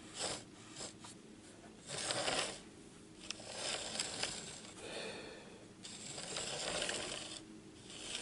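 Hornby Dublo N2 tank engine chassis, with its motor armature removed, pushed by hand along metal model railway track: wheels, gears and coupling rods rolling and rattling in several short runs, the longer ones in the second half. It is being checked for free running and turns smoothly, without rough spots.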